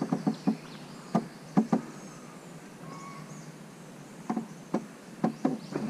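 Scattered sharp knocks and clicks, about a dozen at irregular intervals, from gear being handled in a small fishing boat, over a faint steady buzz of swamp insects.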